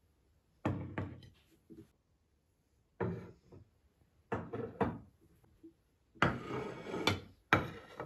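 Ceramic plates and bowls being set down on a table one after another: about five separate clunks with short clattering after each, the last two the loudest.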